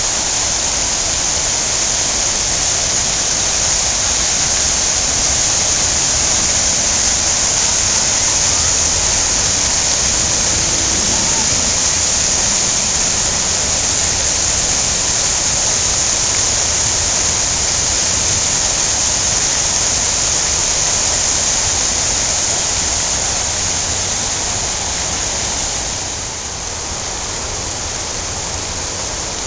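Ring of fountain jets spraying into a large stone pool: a steady rush of splashing water, which falls off a little near the end.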